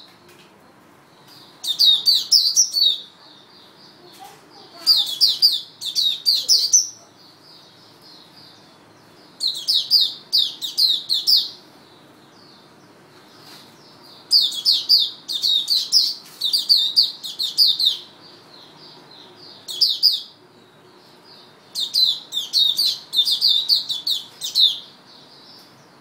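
A caged white-eye (mata puteh) singing: phrases of rapid, high chirping notes, each one to three seconds long, repeated every few seconds.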